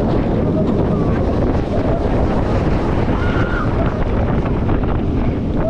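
Rushing wind buffeting a camera's microphone on a roller coaster moving at speed, with faint voices now and then.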